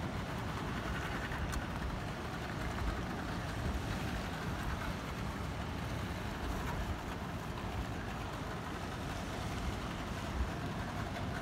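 Wind buffeting the microphone in an uneven, gusty rumble, over choppy sea water washing against a rock breakwall.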